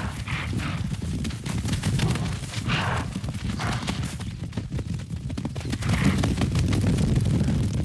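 Hooves of a stampeding herd of zebra and wildebeest drumming on dry ground in a dense, continuous rumble, with several brief animal calls over it.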